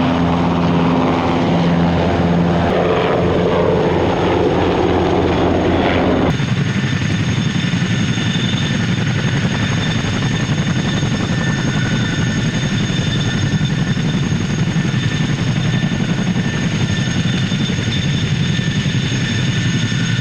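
CH-47 Chinook tandem-rotor helicopters running on the ground with rotors turning: the twin turboshaft engines whining over the rotor noise. About six seconds in the sound changes abruptly, the lower humming tones dropping away and leaving a steadier rush with high whining tones.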